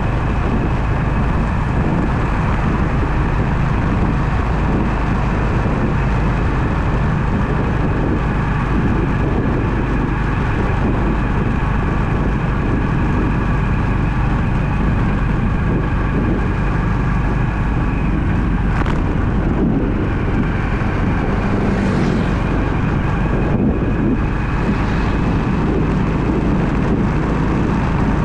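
Car driving, steady engine and road noise heard from inside the cabin.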